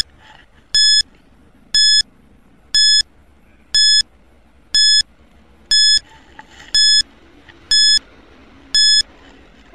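Quiz countdown timer beeping once a second: nine short, identical high electronic beeps, each marking one second ticking off the time left to answer.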